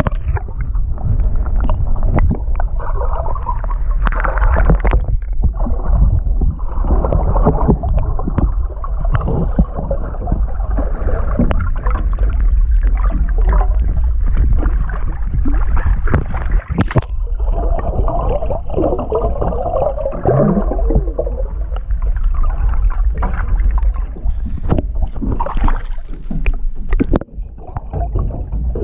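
Muffled underwater sloshing and gurgling picked up by a submerged action camera, with a steady low rumble and scattered small knocks as the water moves against the housing.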